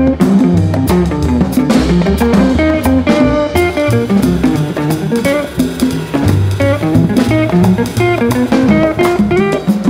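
Background music: plucked guitar over bass and a drum kit with a steady beat.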